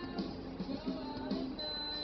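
Music with a melody in held notes; a steady high tone comes in near the end.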